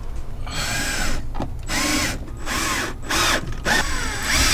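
Yellow DeWalt cordless drill/driver driving screws in several short bursts, its motor whirring up and back down in pitch with each trigger pull, fastening a trim panel back onto the wall.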